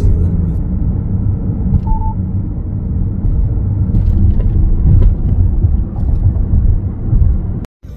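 Steady low rumble of a car driving at highway speed, engine and tyre noise heard from inside the cabin, with a short faint beep about two seconds in.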